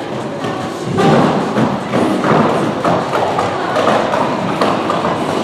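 Roller derby skaters' wheels rumbling and thudding on the hall floor, with knocks from skates and bodies, swelling about a second in.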